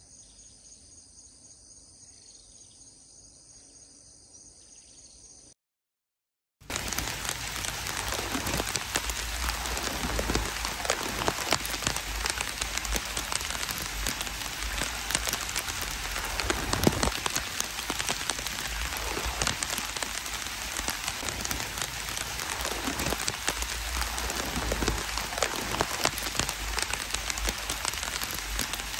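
Faint insects chirring at first. After a short break in the sound, a loud, dense, steady patter of falling water drops runs on.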